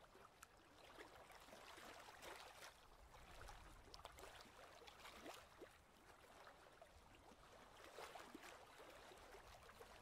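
Near silence: a faint hiss with scattered soft ticks and crackles.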